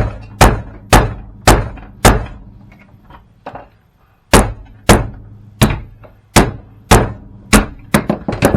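Heavy blows repeatedly bashing an old printer-copier apart, each a sharp loud whack with a short ring. There are about five quick strikes, a pause of about two seconds, then about nine more, the last few coming faster.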